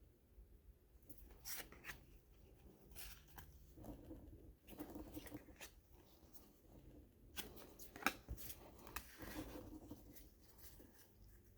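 Faint rustling and tearing of baseball card pack wrappers being opened, with the cards handled and shuffled, and a sharp click about eight seconds in.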